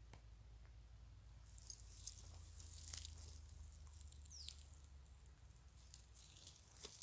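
Near silence with faint rustling of dry grass and fallen leaves under a German shorthaired pointer's steps as it works the cover. A brief high chirp falls in pitch about four and a half seconds in.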